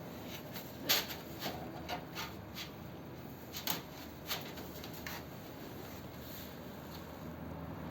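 A handful of light, sharp clicks and taps, like small objects being handled, over a steady low hiss. They come irregularly through the first five seconds, then stop.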